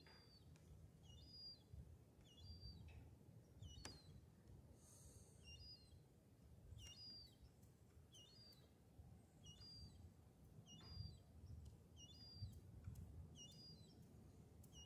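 A bird faintly repeating a short, high two-note chirp about every second and a half, over a low background rumble.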